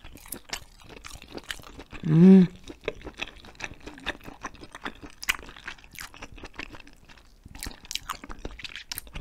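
Close-mic'd chewing of Korean hagfish skin jelly (kkomjangeo kkeopjil-muk), many small irregular clicks and crunches of the chewy jelly in the mouth. About two seconds in, a short hummed "mm" from the eater stands out as the loudest sound.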